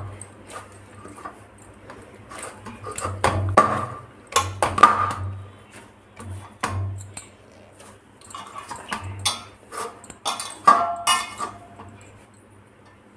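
Hands working a ball of wheat-flour dough with ghee in a stainless steel bowl: irregular knocks, scrapes and clinks of dough and hands against the bowl, which rings briefly now and then, most strongly about ten to eleven seconds in.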